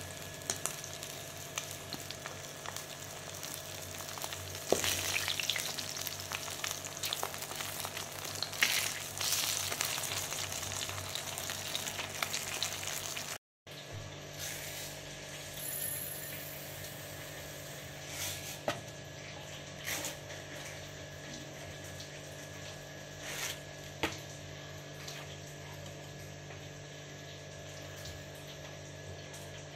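Fish pieces frying in hot oil in a wok: a steady sizzle, with a few sharp knocks and scrapes from the spatula turning them. About halfway through it cuts to a quieter steady background hum with a few light knocks.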